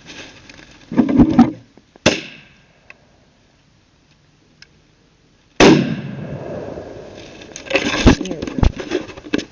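Two gunshots about three and a half seconds apart, the second louder with a long trailing echo, followed by a run of clicks and knocks.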